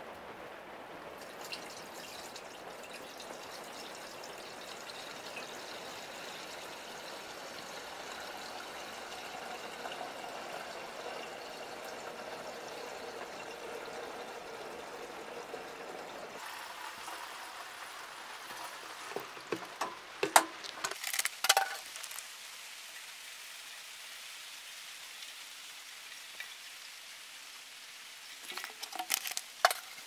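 Windshield washer fluid pouring in a steady stream from a plastic jug into the sawmill's blade-lubrication water tank, stopping suddenly about halfway through. A few seconds later come several sharp, loud knocks, with a few more near the end.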